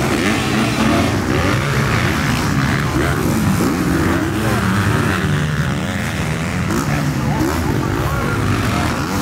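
Several motocross bikes' engines revving hard as they race over the track, with overlapping engine notes that keep rising and falling in pitch through throttle and gear changes.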